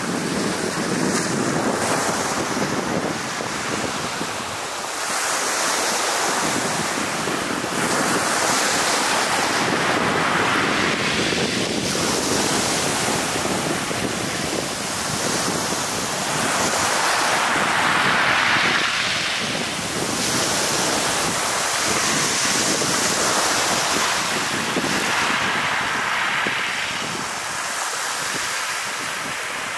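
Small sea waves breaking and washing over a pebble shore at the water's edge, the surf swelling and easing every few seconds.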